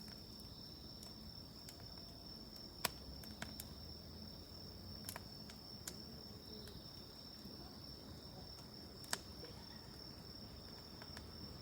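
Campfire wood crackling, with a few sharp pops, the loudest about three seconds in and again near nine seconds. Underneath runs a steady high insect trill.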